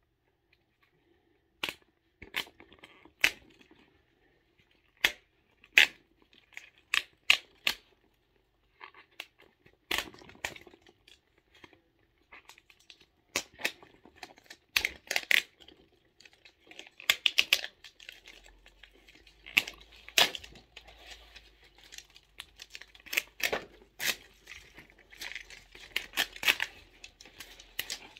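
Plastic toy packaging being cut with scissors and pulled open: irregular sharp snips and clicks with crinkling plastic, getting busier in the second half.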